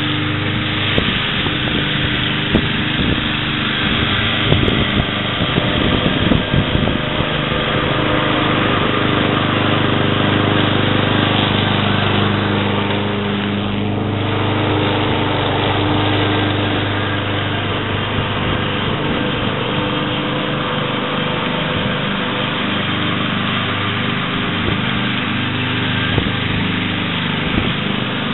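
Kohler Courage 173cc single-cylinder engine of a self-propelled Ariens walk-behind mower running steadily under load while mowing grass and picking up dry leaves. Scattered clicks and knocks come in the first several seconds.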